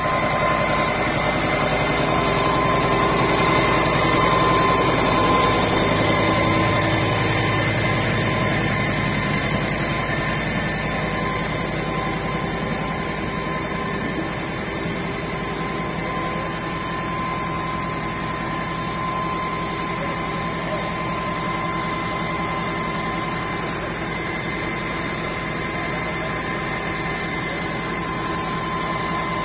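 Engine running steadily, with a steady high whine held over it; a little louder for the first several seconds, then even.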